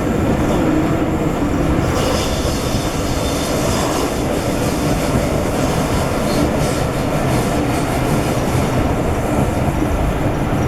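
Railway passenger coach running along the track: a steady rumble of wheels on rails.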